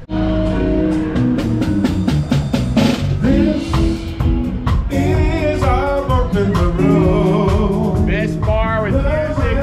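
A small live band playing, with a drum kit beating out the rhythm and a voice singing over it; the music starts suddenly.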